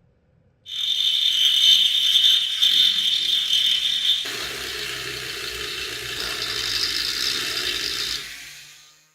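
A loud mechanical whirring rattle that starts suddenly, turns rougher and lower about four seconds in, and dies away near the end.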